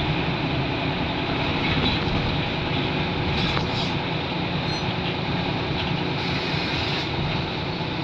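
Scania L94UB Wright Solar single-decker bus under way, heard from inside the passenger cabin: steady engine and road noise with a whirring running through it.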